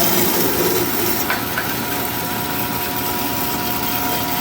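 Horizontal bandsaw running near the end of a cut through 1-inch plate: a steady motor whine over blade-cutting noise, with a small click about a second and a half in.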